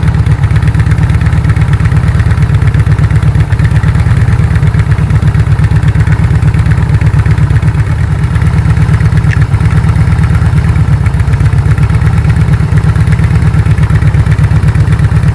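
Motorcycle engine idling: a loud, steady, low chugging.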